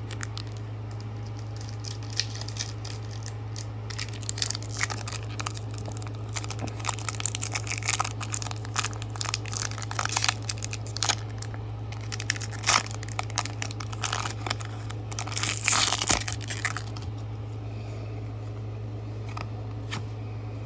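Foil booster-pack wrapper being torn open and crinkled by hand in a run of short, sharp crackles, loudest near the end of the run, over a steady low electrical hum.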